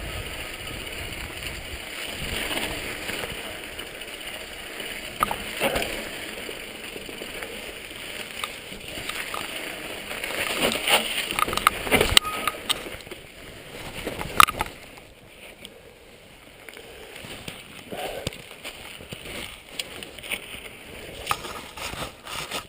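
Mountain bike moving over rocky trail: tyre noise with scattered knocks and rattles over wind on the microphone, with the sharpest knocks around the middle and quieter after that.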